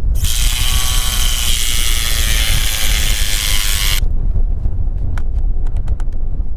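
Cordless drill running for about four seconds as it bores into the wooden brace rail at a fence post, then cutting off suddenly. A few light clicks follow, and wind rumbles on the microphone throughout.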